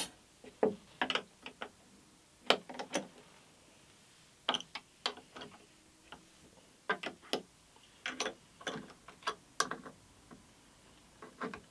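Spanners clicking and clinking on the steel mounting bolts of a cast-iron pillow-block bearing as the bolts are tightened, in short groups of quick clicks every second or so.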